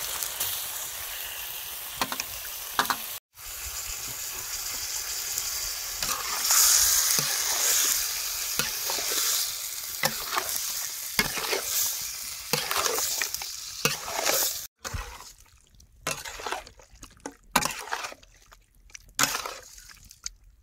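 Catfish pieces sizzling in hot oil and sauce in a steel wok, with a metal spatula scraping and knocking against the wok as they are stirred. The sizzle is loudest about six to eight seconds in and dies down in the last few seconds, leaving separate scrapes and knocks.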